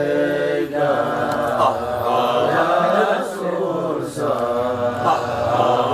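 Several men's voices chanting an Arabic devotional qasida in praise of the Prophet together, Sufi dhikr chanting in a continuous melodic line that rises and falls.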